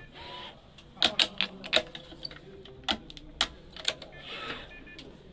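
Badminton racket being strung by hand on a stringing machine: a run of sharp, irregular clicks and snaps as the string and frame are handled, loudest between one and two seconds in, with a short rasp of string being drawn about four seconds in.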